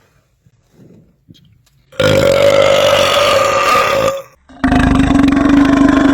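A man belching after chugging carbonated cream soda: two long, loud belches, the first starting about two seconds in and the second, deeper one following after a brief break and still going at the end.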